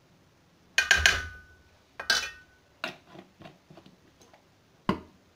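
Metal spoon clinking against a steel bowl of flour. A cluster of sharp, ringing clinks comes about a second in, another just after two seconds, then a run of lighter taps and one more clink near the end.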